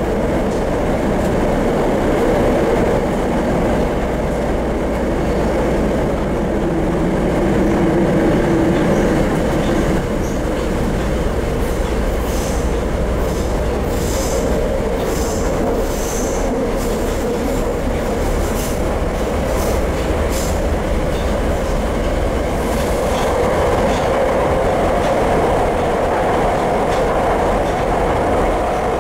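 Running noise of a Tokyo Metro 02 series subway train (unrenewed car with Toshiba IGBT-VVVF drive), heard inside the car: a steady rumble of wheels on rail. A run of sharp high clicks and hisses from the wheels and track comes through in the middle.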